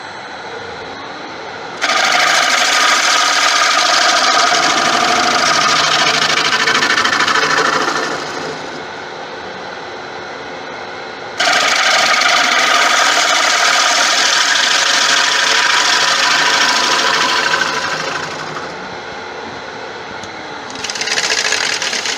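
A turning tool cutting the inside of a wooden bowl spinning on a lathe: two long passes that start suddenly and fade out, a shorter one near the end, with the lathe's steady hum in between.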